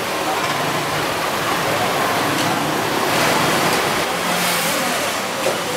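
Steady roar of busy street noise, road traffic with faint voices in the background.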